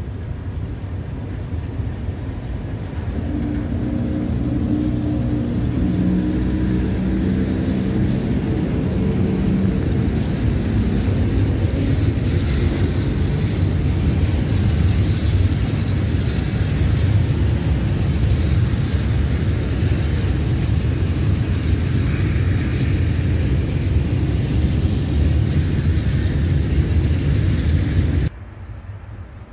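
ET22 electric locomotive hauling a train of open freight wagons past on the rails: a heavy rolling rumble of wheels on track that builds over the first few seconds and then holds steady. For the first ten seconds or so a few low humming tones sound over it. The sound cuts off suddenly shortly before the end.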